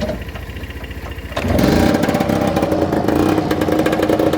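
A scooter engine idles steadily. About a second and a half in, a Lambretta Series 2's two-stroke single-cylinder engine starts up and runs much louder over it, its pitch rising as it picks up.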